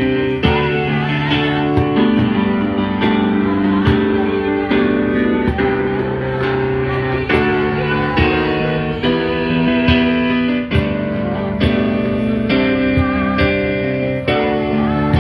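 Guitar-led music: chords strummed in a steady rhythm.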